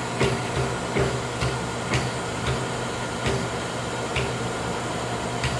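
Moore G-18 jig grinder running: a steady hum, broken by sharp clicks about every half second to a second.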